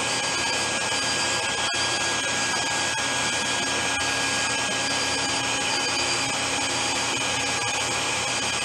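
Tool-and-cutter grinder running, its pink grinding wheel grinding the cutting edge of a small end mill: a steady motor hum and whine with the noise of the wheel on the steel. The grinding contact stops near the end, leaving the wheel running.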